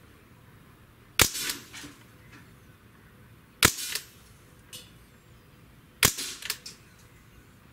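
Three shots from a CO2-powered .177 Umarex Ruger 10/22 air rifle fired double action, about two and a half seconds apart. Each is a sharp crack with a short tail after it.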